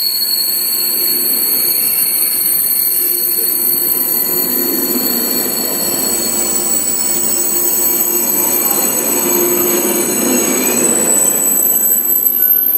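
KTX high-speed train braking: several steady, high-pitched squealing tones over a dense rolling rumble, with some of the high tones dropping out near the end.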